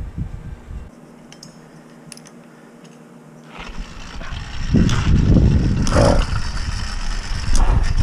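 Motorized bicycle with a YD100 engine kit being worked: quiet with a few light clicks at first, then from about four seconds in a loud, uneven low rumble with scraping and clatter as the bike and engine are set going.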